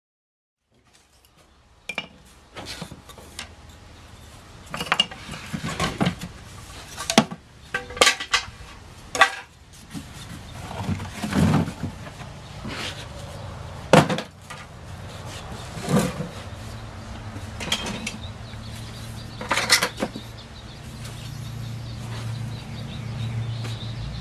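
Metal tools and parts being handled, giving a string of irregular clinks and knocks. A low steady hum comes in late and grows louder near the end.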